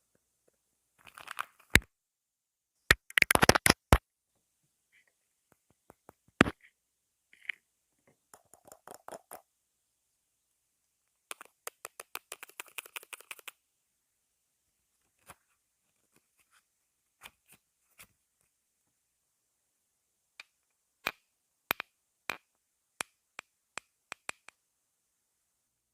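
A string of short, varied clicks, snaps and scratchy noises with silences between them, including a quick run of rapid clicking about eleven to fourteen seconds in.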